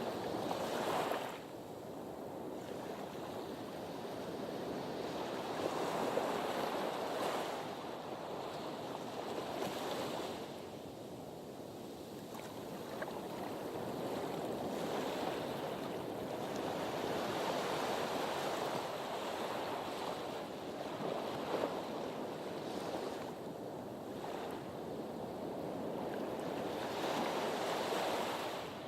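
Sea surf washing against a harbour breakwater. The noise of the water swells and eases again every few seconds.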